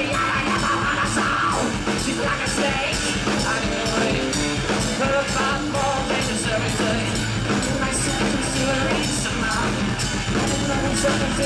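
Live rock band playing: electric guitars, bass guitar and a drum kit keeping a steady beat, with a singer's voice.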